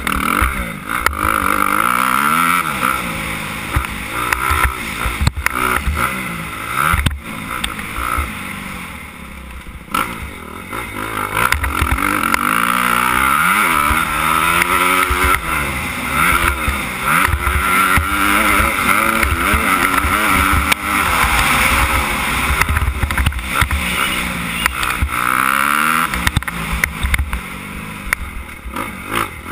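Suzuki 250 motocross bike's engine revving hard and falling back again and again as it is ridden around a dirt track, the pitch climbing through each gear and dropping off into the corners. A few sharp knocks come through, the loudest about seven seconds in.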